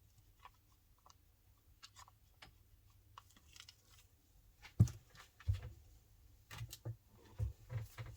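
Soft clicks and light tapping of small craft containers and tools being handled, then from about five seconds in a run of dull knocks and clicks, like a stick knocking against a plastic mixing cup of resin.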